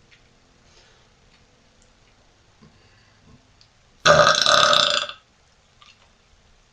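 A woman's single loud burp, lasting about a second, a little past the middle.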